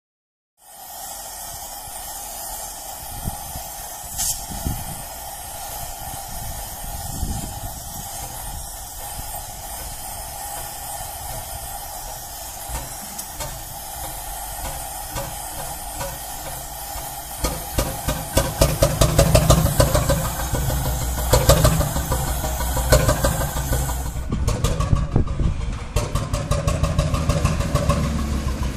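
Gas torch hissing steadily as it heats the glow head of a Lanz-type single-cylinder hot-bulb engine. About 17 seconds in, the engine fires and runs with quick, uneven, louder beats. The torch hiss cuts off about 24 seconds in while the engine keeps running.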